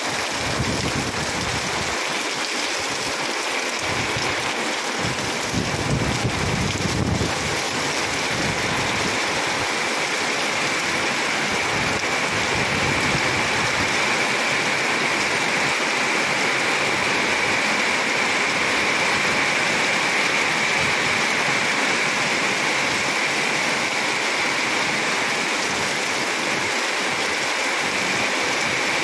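Heavy rain falling in a steady, dense downpour. There is a brief low rumble about six seconds in.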